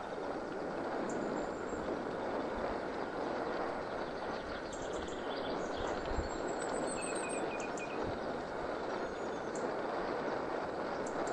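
Mountain bike rolling along a dirt forest trail: a steady rushing rumble of tyres on the ground and the ride. A few faint bird chirps come in between about five and eight seconds in.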